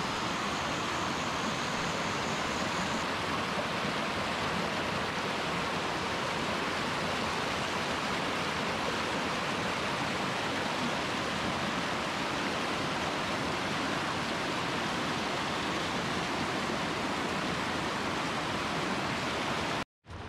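Steady rush of stream water running over rocks, even and unbroken, cutting off abruptly just before the end.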